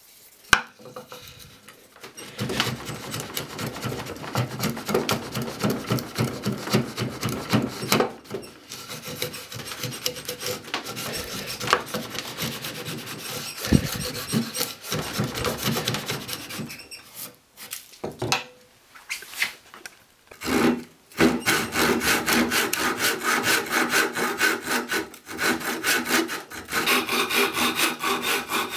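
A homemade wooden rebate plane, its iron a bench chisel, cutting a rebate in softwood in repeated short strokes. About 21 seconds in, a handsaw takes over, cutting wood in fast, even strokes.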